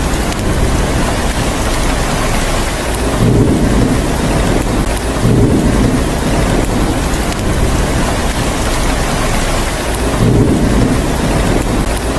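Steady heavy rain falling, with low rumbles of thunder swelling in about three times.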